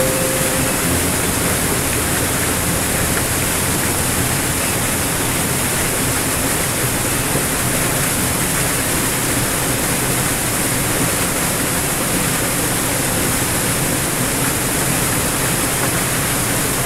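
Small waterfall pouring over rocks into a pool: a steady, even rush of splashing water.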